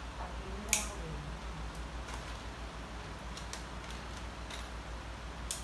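Small plastic bag of furniture bolts and dowels being opened and handled: one sharp crackle about three-quarters of a second in, then scattered faint crinkles, over a steady low hum.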